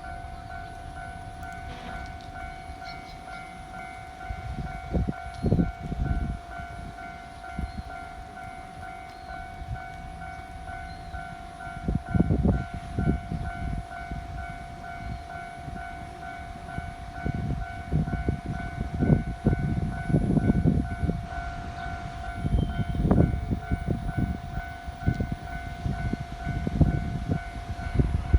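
Japanese level-crossing alarm ringing with a fast repeating electronic beat throughout. Meanwhile a 103-series electric train rumbles and clunks in pairs as its wheelsets cross rail joints, getting louder toward the end.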